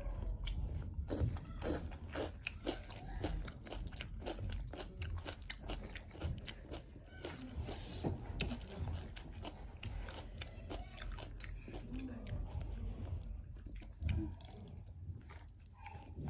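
Close crunching and chewing of Takis rolled tortilla chips eaten with a cream-cheese-stuffed jalapeño: irregular crisp crunches, one after another, mixed with wetter chewing.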